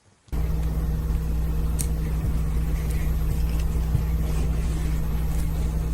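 A steady low electrical hum starts abruptly about a third of a second in and holds even, with a few faint light clicks over it.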